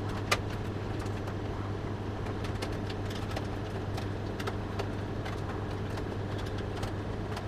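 Screws being tightened into a PC case by hand with a screwdriver: one sharp click about a third of a second in, then faint scattered clicks and taps, over a steady low hum.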